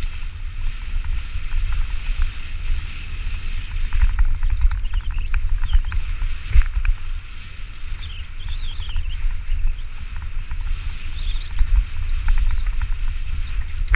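Wind buffeting the microphone as a mountain bike rides the trail, with the bike clattering and rattling over rough ground in short clusters and one sharp knock about halfway through.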